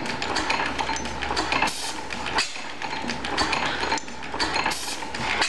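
5 HP Springfield hit-and-miss gas engine running, its valve gear and sideshaft making a fast, steady clatter, with two louder bursts about three seconds apart.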